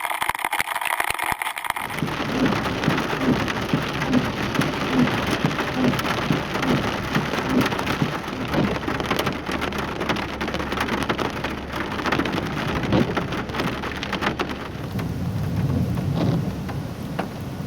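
Torrential thunderstorm rain pouring down, with thunder rumbling low underneath; the rumble swells again near the end.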